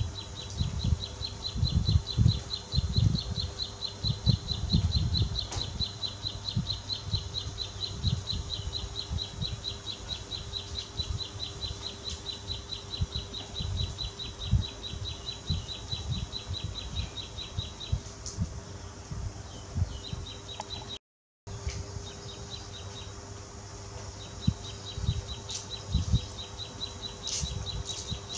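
Insect chirping in a high, fast, evenly pulsed trill. The trill breaks off about 18 seconds in and comes back in stretches later. Low rumbles and knocks, loudest in the first few seconds, run underneath.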